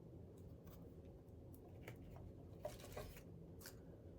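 Near silence with a few faint, scattered clicks of small handling noises.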